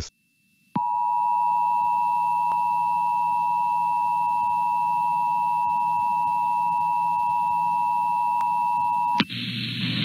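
Emergency Alert System attention signal: the steady two-tone alarm on a television (853 and 960 Hz together). It starts about a second in, holds for about eight seconds, then cuts off near the end into a burst of noise.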